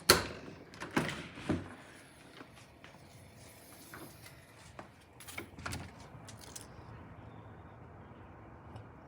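Sliding door being opened: a sharp knock at the start, two more knocks about a second and a half later, and a few rattles around five to six seconds in, followed by a faint steady hum.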